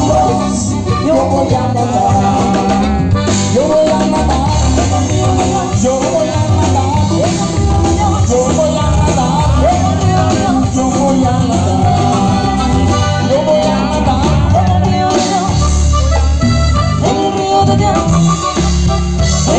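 Live band playing an up-tempo Latin song in norteño style: accordion and drum kit with bass over a steady dance beat.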